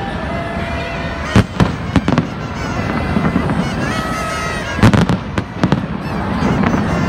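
Fireworks going off: sharp, loud cracks in clusters, a few about a second and a half to two seconds in and another burst of cracks about five seconds in, over a steady din of crowd noise.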